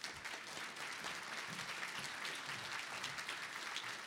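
Audience applauding, a steady wash of many hands clapping.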